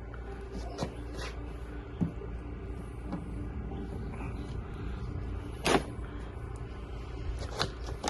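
Scattered sharp knocks and clicks of tools and engine parts being handled during oil pan fitting, about six in all, the loudest about two thirds through, over a steady low hum.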